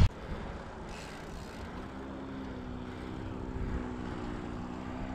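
A paramotor (powered paraglider) engine and propeller running with a steady drone that becomes clear about two seconds in.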